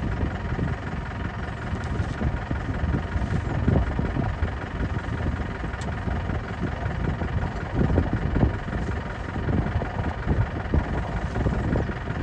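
A safari vehicle's engine idling steadily, a low rumble with no changes in speed.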